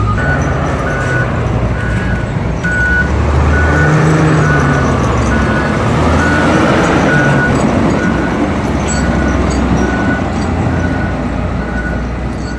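Diesel engines of a wheel loader and a motor grader working snow, revving up and down, while a reversing alarm beeps steadily about once every 0.7 seconds.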